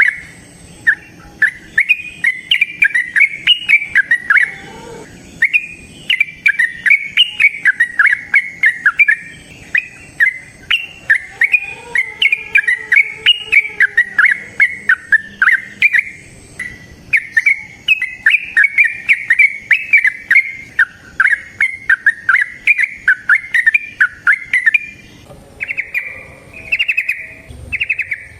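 Yellow-vented bulbul (trucukan) singing a long, rapid run of bright chirping notes, several a second, with only short pauses: the extended 'ropel' song used to draw other bulbuls into singing.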